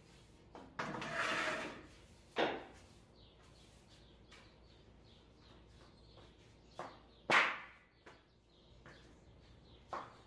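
Kitchen handling sounds: a brief scraping rush about a second in, then several sharp knocks and clatters of things being set down or moved, the loudest a little past the middle.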